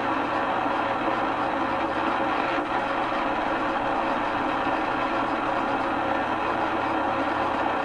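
Radio Shack DX-302 shortwave receiver's speaker putting out a steady rush of static: loud RF noise on the band as it is tuned, with a faint low hum underneath.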